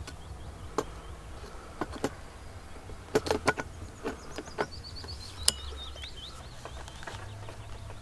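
Sharp clicks and knocks of camera gear being handled as a teleconverter is fitted to a telephoto lens, over a steady low hum. About halfway through a bird sings a short phrase of high notes stepping down in pitch.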